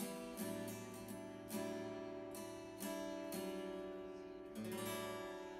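Background music: acoustic guitar strumming chords, the last chord ringing out near the end.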